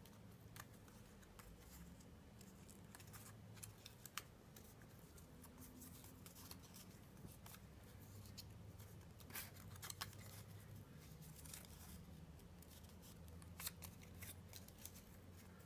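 Near silence, with faint, scattered clicks and rustles of a cardstock cutout being handled and folded along its dotted lines.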